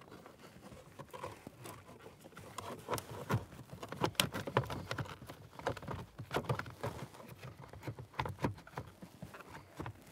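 A plastic blower motor assembly being pushed and turned into its plastic HVAC housing: irregular clicks, knocks and light rattles of plastic against plastic, busier from about two seconds in.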